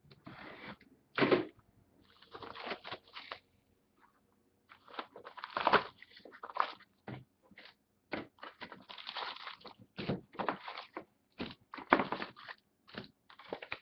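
Hockey card boxes and wrapped packs being opened and handled by hand: irregular crinkling, rustling and tearing of wrappers and cardboard, in short bursts with brief pauses.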